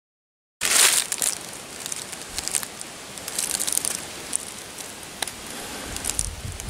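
Footsteps crunching and crackling through dry fallen leaves, with a louder rustle just under a second in. The first half second is silent.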